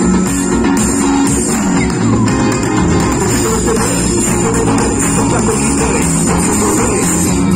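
Live band music played loud through a concert sound system and recorded from within the crowd, with electric bass guitar and keyboards.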